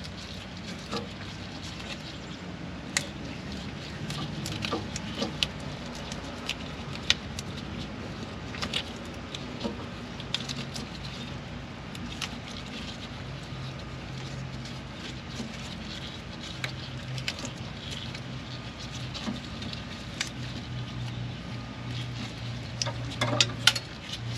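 Scattered light clicks and metallic ticks of hand tools cutting a steel brake line, over a steady low hum.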